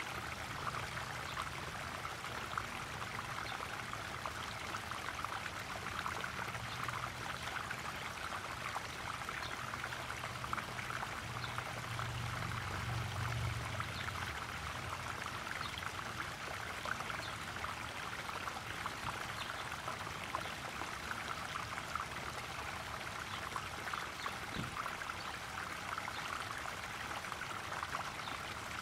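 Small garden pond waterfall, water spilling and splashing steadily into a koi pond.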